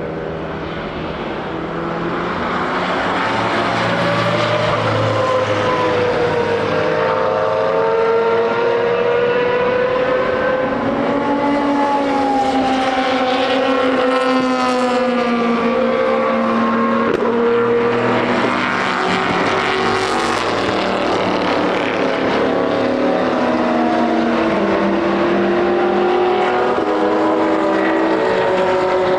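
Several historic racing car engines running at once, their pitches rising and falling against each other as the cars accelerate and lift. The sound builds over the first few seconds and then holds at a steady loud level.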